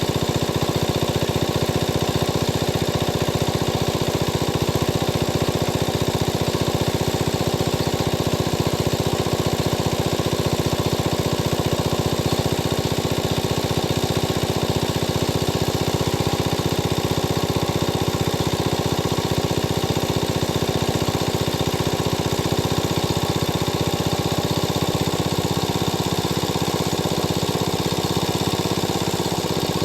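Small engine running steadily at a constant speed, with a fast even firing pulse.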